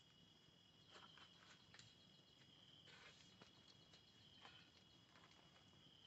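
Faint night insects: a steady high-pitched trill like crickets, with a few faint clicks over it.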